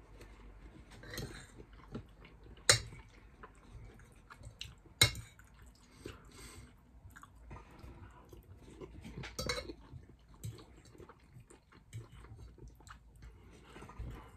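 Eating sounds: cutlery clinking and scraping on a plate with chewing between, and two sharp clinks a couple of seconds apart in the first half.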